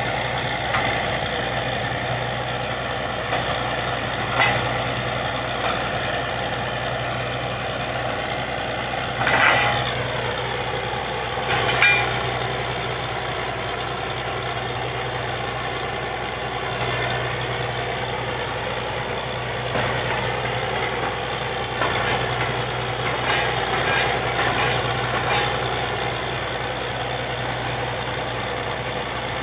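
Engine of a truck-mounted borewell drilling rig running steadily. A few sharp knocks come over it, the loudest about nine and twelve seconds in, and a quick run of knocks comes later on.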